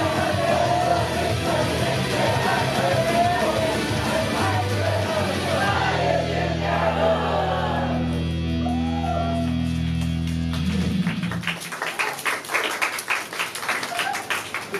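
Live rock-style idol pop song with singing over the band, ending about eight seconds in on a held chord with a steady bass that cuts off a few seconds later. It is followed by a patter of audience applause.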